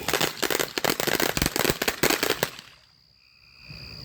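Firework crackling: a dense, rapid run of sharp pops and crackles for about two and a half seconds that then stops abruptly.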